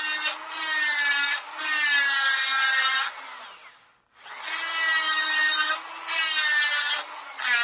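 High-speed rotary grinder cutting the port of a McCulloch S550 chainsaw's iron-bored cylinder: a whine that wavers in pitch as the bit bites. It winds down and stops about four seconds in, then starts up again.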